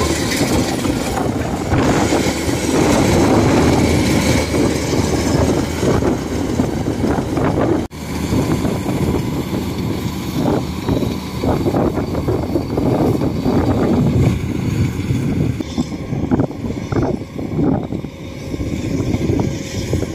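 Thai-built 105-model rice combine harvester running while it cuts and threshes standing rice, its engine and threshing machinery making a steady, loud mechanical din. The sound cuts out for a moment about eight seconds in, then goes on with a more uneven, swelling level.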